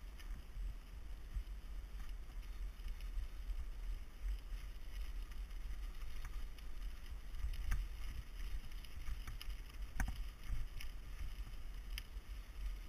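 Mountain bike rolling along a gravel track: a steady rumble of tyres and wind on the bike-mounted camera's microphone, with a few sharp knocks and rattles, three of them standing out in the second half.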